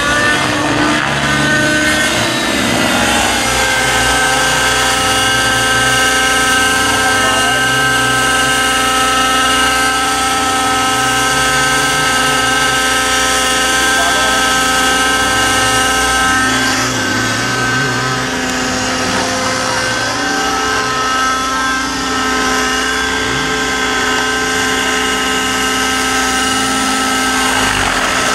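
Radio-controlled aerobatic helicopter running with a steady high-pitched whine from its power plant and rotor. The pitch holds almost constant, wavering slightly once or twice.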